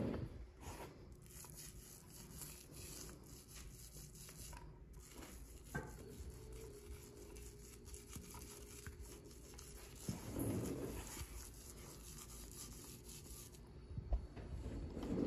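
Paint roller working paint onto the underside of a trailer: a faint, sticky crackle in repeated back-and-forth strokes, with a brief pause about five seconds in.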